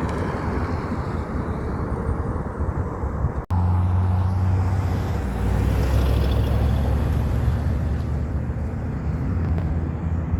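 Heavy truck engine running with a deep, steady note. The sound drops out for an instant about three and a half seconds in, then comes back fuller and stronger.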